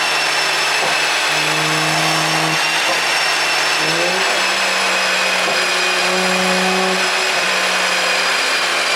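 BMW X5 xDrive40i's 3.0-litre turbocharged inline-six running steadily near idle with a high whine, its pitch shifting slightly a few times; no exhaust pops are heard.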